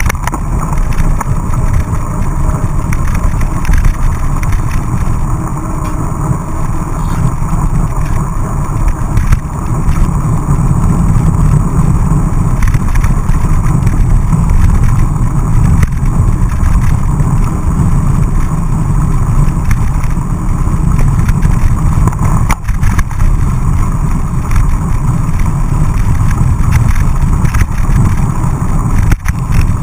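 Steady wind rush and road rumble on a handlebar-mounted camera as a mountain bike rides over wet road, with a couple of sharp knocks from bumps in the second half.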